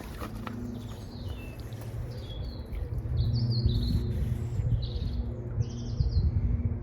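A songbird singing several short phrases of quick descending chirps from about two seconds in, over a low rumble that grows louder about three seconds in.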